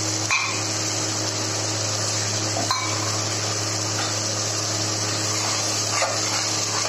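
Ground masala paste sizzling steadily in hot oil in a heavy pot as it is sautéed until the oil separates, with a steady low hum underneath and a few light knocks of the stirring spoon.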